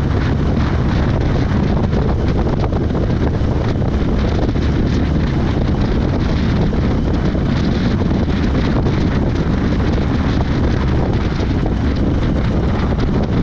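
Steady, loud wind rumble buffeting the microphone, an even rushing noise heaviest in the low end.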